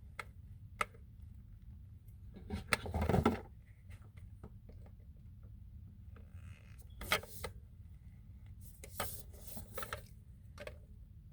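Plastic hair-dryer pick attachment being handled and worked onto the dryer's barrel: scattered clicks, knocks and scrapes of hard plastic, with the longest scrape about three seconds in.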